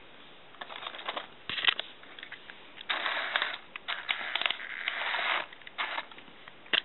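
Lego remote-control vehicle running in short, irregular spurts, its plastic parts rattling and clattering, with a few sharp clicks.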